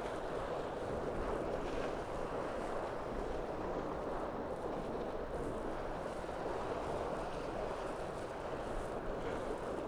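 Steady rushing noise of wind and water heard onboard a Tornado racing catamaran sailing downwind under spinnaker.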